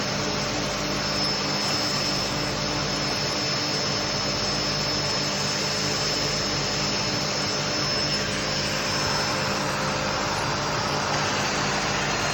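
Festool Domino jointer running with its dust extractor: a steady whirring drone with a faint high tone, unbroken throughout.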